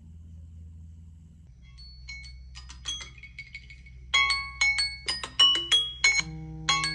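Samsung smartphone alarm tone playing a marimba-like melody of plucked, bell-like notes. It starts faintly about two seconds in and turns loud and busy about four seconds in, with notes overlapping.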